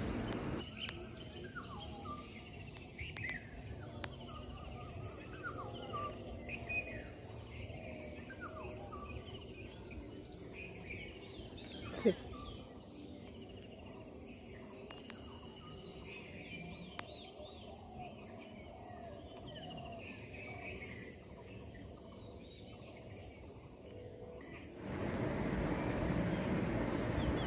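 Many small birds chirping and calling, short repeated chirps over a faint steady hiss, with one short sharp sound about halfway through. Near the end an even rushing noise comes in, louder than the birds.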